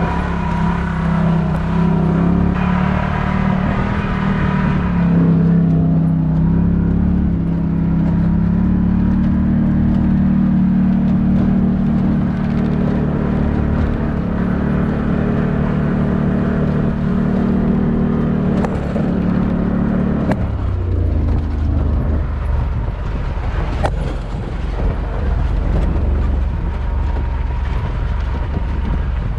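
UTV engine running while the machine drives, its note steady and then dropping to a lower pitch about two-thirds of the way through.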